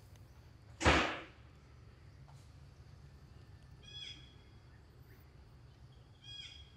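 A sudden short whoosh about a second in, then two brief high-pitched animal chirps a few seconds later.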